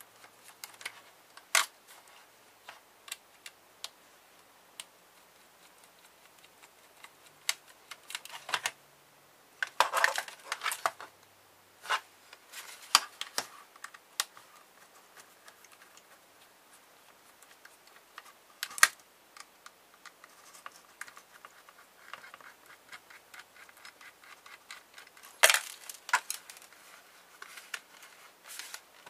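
Scattered clicks and light metallic rattles of a small screwdriver working screws out of a laptop optical drive's mounting bracket, with loose screws and the drive's metal casing being handled. The clicks come singly and in short clusters, loudest about ten seconds in and near the end.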